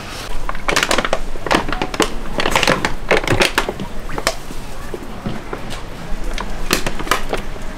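Gloved hands tossing and scooping japchae filling of glass noodles with sliced onion and carrot, a dense run of crunchy, crackling rustles for the first few seconds, easing off with a few sharper clicks near the end.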